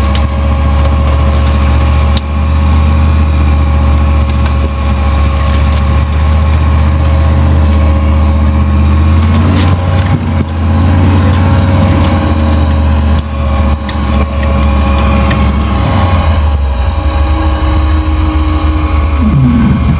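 4x4 truck engine running steadily under way on a dirt trail, heard from inside the cab, with a low rumble and a steady hum. A few short knocks come through from the truck over the bumps.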